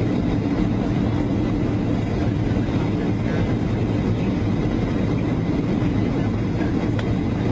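Steady engine and airflow noise of a four-engine jet airliner in flight, heard from inside the passenger cabin.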